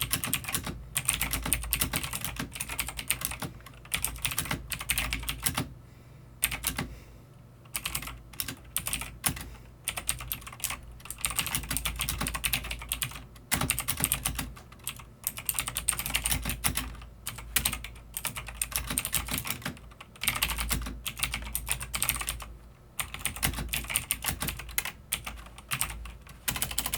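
Typing on a cheap mechanical keyboard with clone MX Blue clicky switches: fast runs of sharp clicks and clacks, broken by brief pauses now and then.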